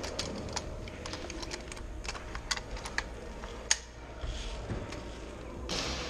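Scattered, irregular sharp clicks and ticks of an indoor airsoft game, BBs and gunfire cracking in the hall, with one louder crack a little past halfway. A brief hiss comes near the end.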